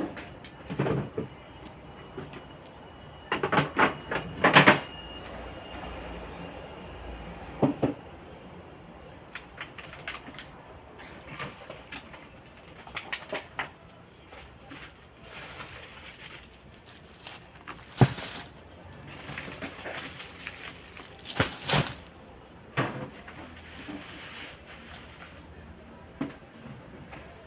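Scattered knocks and clatter of containers, shelves and fridge parts being handled and set down while a refrigerator is cleaned out, a few sharp knocks louder than the rest.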